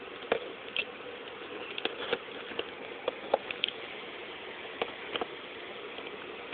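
Scattered light clicks and taps as the alarm clock and its power cord are handled, about a dozen irregular knocks over a steady faint hiss and hum.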